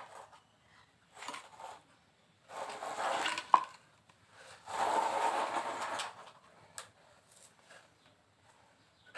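Clattering and scraping of small hard objects in two stretches, the first about a second long and the second about a second and a half, with a sharp click between them.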